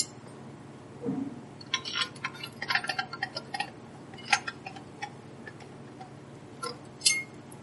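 Small metallic clicks and ticks of a hand screwdriver working a 10-32 screw into a metal recorder case. A quick run of clicks comes about two to three and a half seconds in, then single sharper clicks, and the last, louder one near the end rings briefly.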